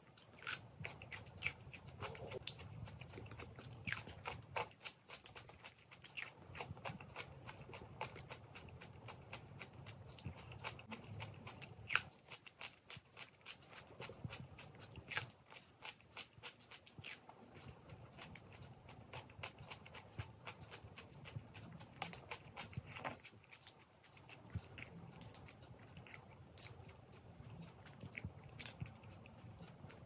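Chewing and crunching of raw cucumber: irregular crisp crunches and wet mouth clicks, several a second.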